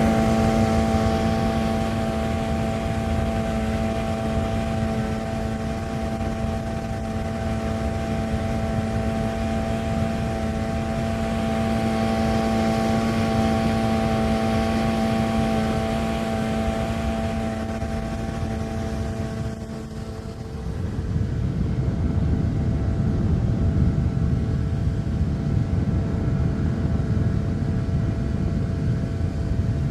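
Boat engine running steadily with a constant hum over a low rumble. About twenty seconds in, the hum drops away and the low rumble grows louder.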